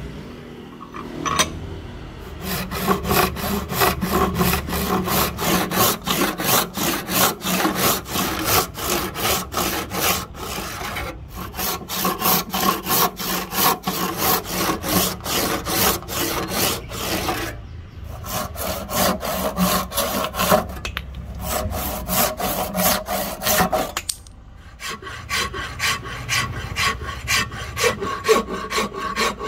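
Hand saw cutting down into a block of ebony held in a vise, in quick, regular back-and-forth strokes with a few short pauses. About 25 seconds in, after a pause, a flat file starts rasping across the ebony.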